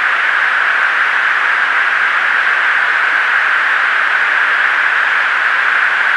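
Steady static hiss on a Navy jet's cockpit intercom recording, a thin, even, radio-like rush.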